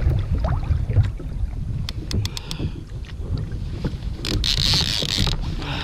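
Wind buffeting the microphone and water moving around a kayak hull, with a few sharp clicks about two seconds in and a short rush of hiss about four and a half seconds in.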